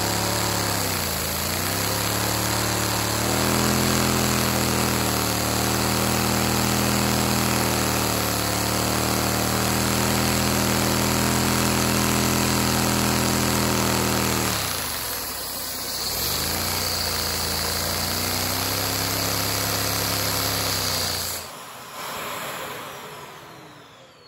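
LEGO Boxer 2 vacuum engine running fast on suction from a vacuum cleaner, a steady mechanical hum over the vacuum's rushing noise. Its pitch dips briefly and recovers about a second in and again about fifteen seconds in. Near the end the sound drops off sharply and fades as it runs down.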